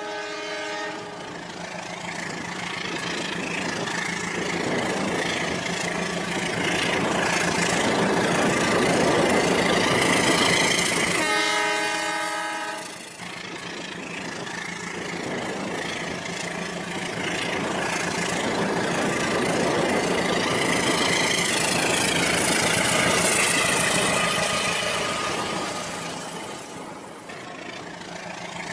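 Toy trains running on plastic track, a steady whir and rattle that swells louder twice as they come near. A train horn sounds briefly at the start and again for about two seconds a third of the way in.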